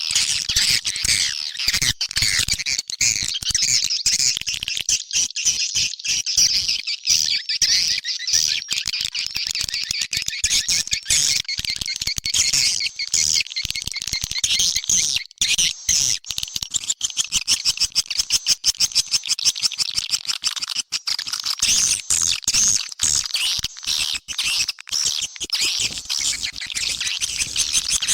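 Swiftlet call recording: a dense, continuous chatter of many overlapping high chirps and rapid clicks. This is the kind of lure sound played to draw swiftlets into a nesting house.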